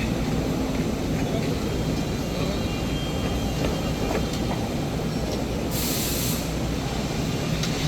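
FANUC Robodrill 5-axis machining centre and its automation cell running with a steady mechanical rumble and scattered light clicks, and a short hiss about six seconds in.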